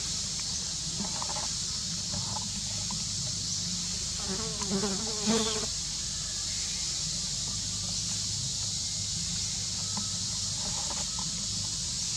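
Insects buzzing steadily and high, over a low steady hum. About four and a half seconds in, a short wavering call rises above them, then stops.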